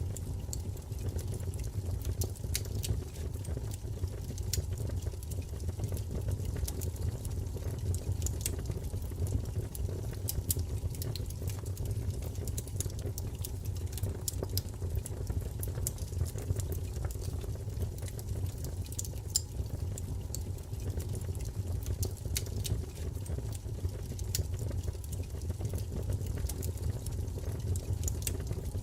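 Wood fire crackling: frequent irregular sharp pops and snaps over a steady low rumble of burning flame.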